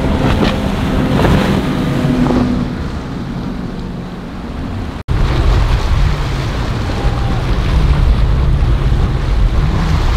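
Outboard engines of center-console boats running past at speed, with the rush of water and wind buffeting the microphone. The sound breaks off for an instant about halfway through, then a second boat's engines and wake carry on at a lower rumble.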